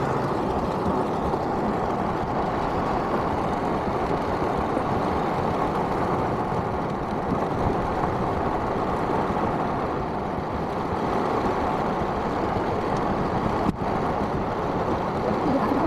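Steady vehicle and traffic noise heard from inside a car in a rainstorm, an even rumble with a brief dropout near the end.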